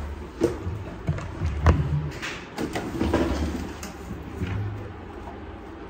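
Handling noise from a handheld phone being moved about: low rumbling thumps and rubbing, with a few sharp clicks or knocks.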